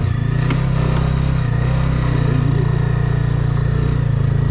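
TVS Apache motorcycle engine running steadily under way in third gear on a gravel track, with one sharp click about half a second in.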